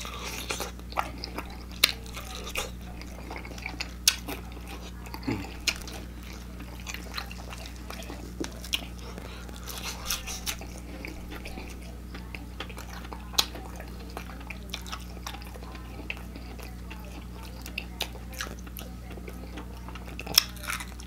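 Close-up mouth sounds of biting and chewing deep-fried, extra-crispy chicken legs: the crispy fried coating crunches in irregular sharp crackles, with chewing in between. A steady low hum runs underneath.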